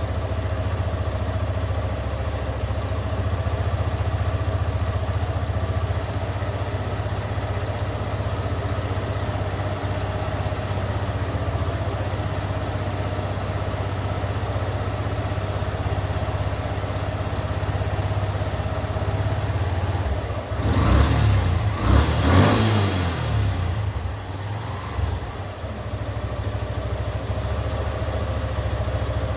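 Yamaha FZS motorcycle's single-cylinder engine idling steadily after sitting unused for eight days. About twenty seconds in it is revved in a few quick throttle blips, the loudest part, then settles back to idle.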